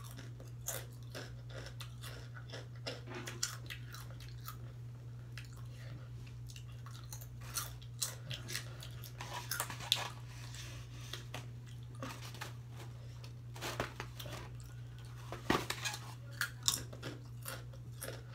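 Close-up chewing of crunchy spicy tortilla chips, with irregular crisp crunches throughout and the loudest bites about ten and sixteen seconds in, over a steady low hum.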